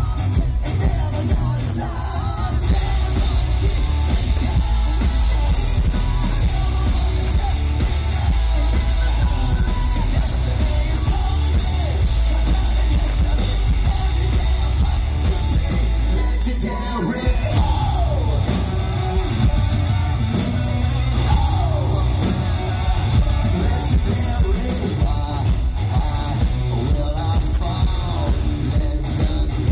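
Live rock band playing loud through a concert PA: distorted electric guitars, bass and drums, with a male singer singing and shouting the vocal. The heavy low end cuts out briefly about halfway through, then the full band comes back in.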